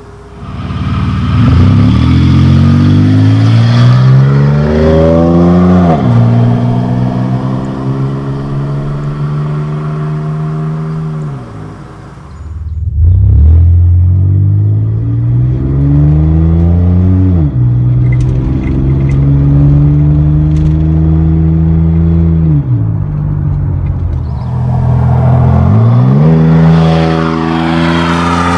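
1997 Chevy Camaro's 3.8L V6 running through a Cherry Bomb performance muffler, accelerating hard through the gears. The engine pitch climbs, drops back at each shift or lift about every five seconds, and climbs again.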